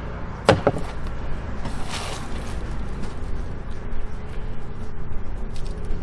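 Gloved hands digging through loose soil in a wooden raised bed, with rustling and small crackles of soil. There is a sharp knock about half a second in and a short scraping rush about two seconds in.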